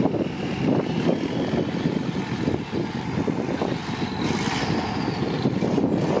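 Off-road trial truck's engine running under load as it crawls over gravel mounds, its loudness rising and falling. A brief hiss comes in about four seconds in.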